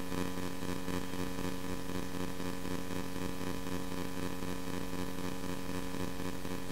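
Steady electrical buzz with several fixed tones and a hiss underneath, picked up on the recording, which the uploader takes for radio transmitter interference.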